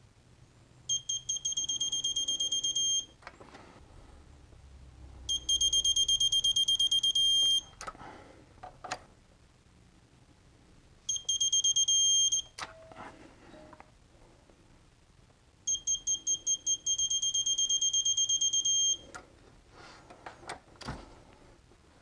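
Eastwood 13622 digital torque wrench beeping four times as head bolts are pulled up to 40 N·m. Each time there is a run of quick high beeps that runs into a steady beep when the target torque is reached. Faint clicks and knocks come between the beeps as the socket is moved to the next bolt.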